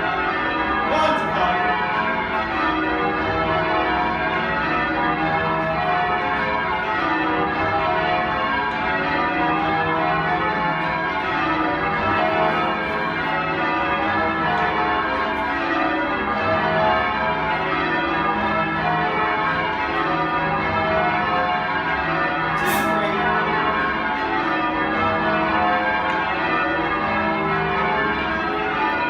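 A ring of ten church bells, with a 17 cwt tenor in E, being rung in continuous changes: a steady, even run of overlapping bell strokes. The bells have been recently rehung and retuned.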